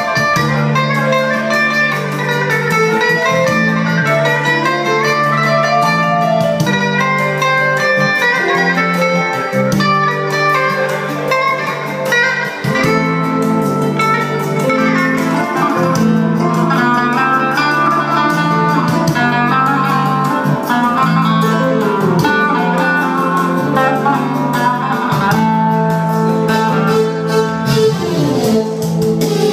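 Amplified live band music, a plucked string instrument playing the melody over a steady repeating bass line.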